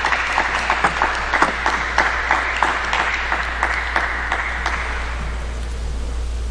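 Crowd applauding after a point in a table tennis match, fading out about five seconds in.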